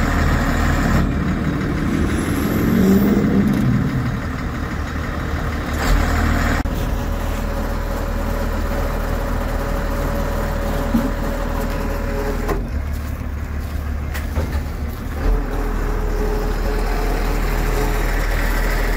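Ford F700 bucket truck's engine running steadily with a low hum, rising and getting louder for a moment about two to four seconds in.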